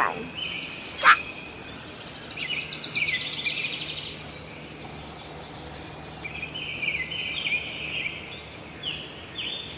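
Weasel calls: bouts of rapid, high-pitched chattering trills, with a sharp click about a second in.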